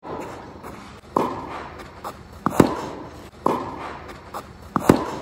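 Two forehand strokes of a tennis racket hitting the ball, about 2.3 s apart. Each sharp crack comes just after the ball's bounce on the court, with a softer knock about a second before each shot and light footsteps between.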